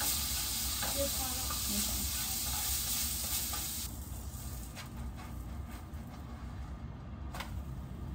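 Pancake batter sizzling in a hot greased frying pan. The sizzle drops away sharply about four seconds in, and there is a single light knock near the end.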